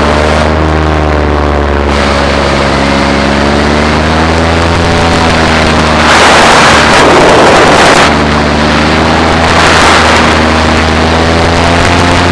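Paramotor engine and propeller droning steadily in flight, its pitch wavering slightly. Wind rushes loudly over the microphone for about two seconds in the middle and again briefly a little later.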